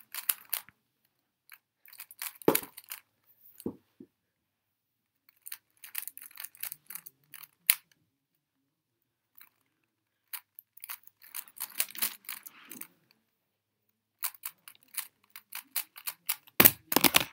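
3x3 speed cube being turned fast by hand: rapid runs of plastic clicking as the layers snap round, broken by short pauses, with the loudest clatter of clicks near the end.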